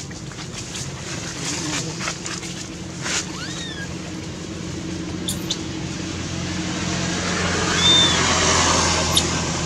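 Engine hum of a motor vehicle, steady and low, growing louder about eight seconds in, with a few short high squeaks and clicks over it.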